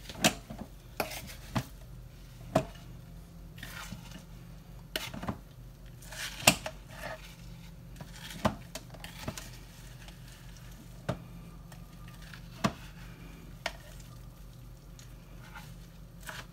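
A slotted spoon stirring crumbled cooked meat and crackers in a slow cooker's crock: irregular sharp knocks and scrapes of the spoon against the crock every second or so, the loudest about six and a half seconds in.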